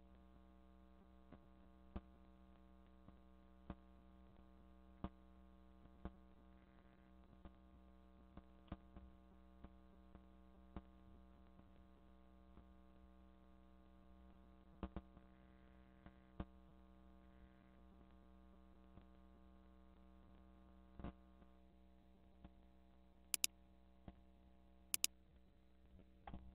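Faint steady electrical hum with scattered soft keyboard clicks as a search query is typed, and two sharper clicks near the end.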